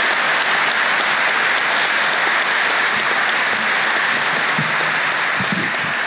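Large audience applauding steadily, a dense even clapping.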